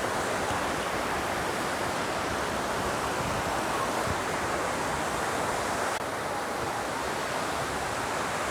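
Steady rushing wash of sea surf breaking on a beach, even throughout, dipping slightly in level about six seconds in.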